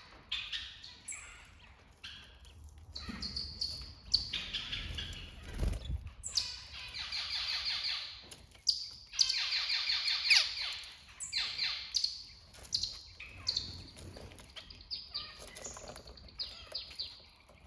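Songbirds chirping and singing in a run of short phrases, several of them fast trills, one after another with brief gaps between. A brief low thud about six seconds in.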